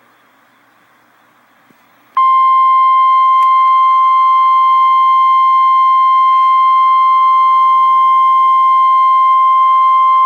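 Faint radio hiss, then about two seconds in a loud, steady single-pitched alert tone starts and holds unbroken: the Emergency Alert System attention signal that comes before a tornado warning is read.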